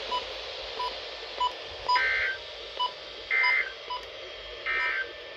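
NOAA Weather Radio SAME end-of-message signal: three short digital data bursts about a second apart, marking the end of the weekly test message, heard through a weather radio receiver.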